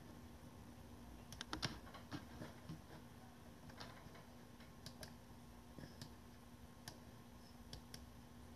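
Faint, scattered clicks of computer keyboard keys being typed, with a quick cluster about a second and a half in, over a faint steady hum.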